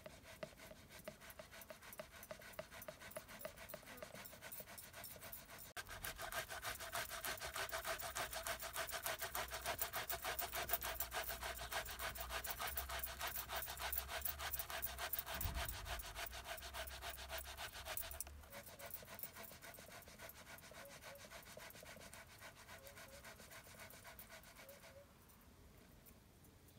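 Metal box grater rasping as a boiled potato is rubbed up and down it over a plastic bowl, a fast, even run of scraping strokes. The strokes grow louder in the middle and stop near the end.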